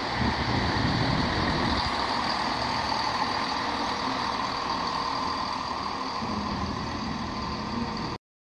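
CrossCountry Class 170 Turbostar diesel multiple unit moving past: a steady underfloor diesel engine drone and rumble with a high whine over it. The sound cuts off suddenly near the end.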